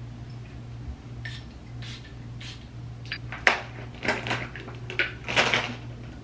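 Clicks and clatters of a plastic bottle being picked up and handled on a counter, with a sharp knock about three and a half seconds in and a quick run of clatters after it, over a steady low hum.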